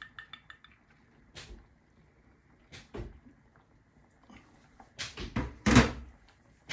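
Kitchen handling sounds as cream is poured from a plastic measuring jug into a stainless steel saucepan: a few light clicks and knocks, the loudest near the end.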